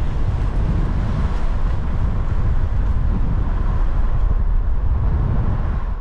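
Steady low rumble of vehicle and wind noise on the microphone, with no distinct events.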